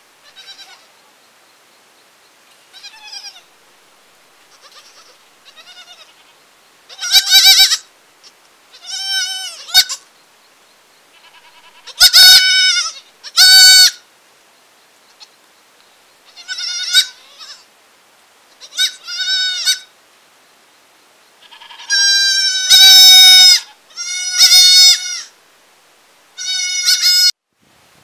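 Goat kids bleating again and again in a series of high, separate calls, faint at first and much louder from about seven seconds in. Several of the bleats have a wavering, quavering pitch.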